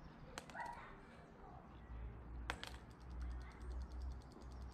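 Zuru Robo Fish robotic toy fish flapping its motorised tail on concrete paving, a run of fast, light ticks, with a sharp click about halfway through. Low wind rumble on the microphone underneath.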